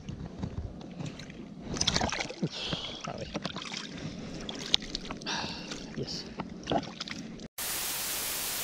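Water splashing and sloshing around hands as a fish is released into the water beside an inflatable float tube, with irregular small splashes and handling clicks. About seven and a half seconds in, the sound cuts out and about a second of loud, even TV-static hiss follows.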